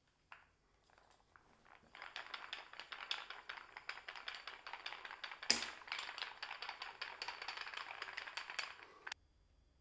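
A homemade wooden holdfast clamp, with its metal rod and round wooden knob, rattling and clacking in quick, uneven clicks as it is shaken and worked by hand. One sharp knock comes about halfway through, and the rattling stops abruptly near the end.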